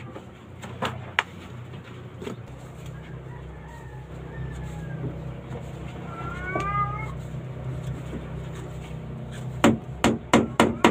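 Claw hammer blows on a plywood boat hull: a few knocks around the start, then a quick run of loud strikes near the end. A steady low hum runs underneath, and a short wavering animal call sounds in the middle.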